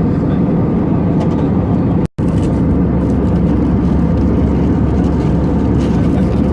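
Airbus A320 passenger cabin noise: a steady, loud low rumble of engines and airflow, broken by a momentary dropout about two seconds in.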